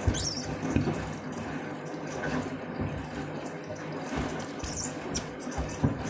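Candy front-loading washing machine on its last rinse: water sloshing in the turning drum over a low motor hum, with a few sharp knocks from the load.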